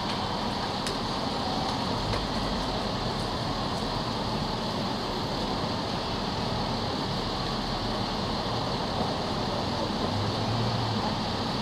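Steady city street ambience: a continuous hum of road traffic and general town noise at a busy intersection.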